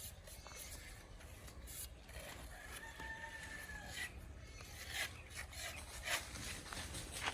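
A rooster crows once, faintly, about two and a half seconds in: one long, held call. Short rasping, scraping sounds come and go, with sharper scrapes near the end.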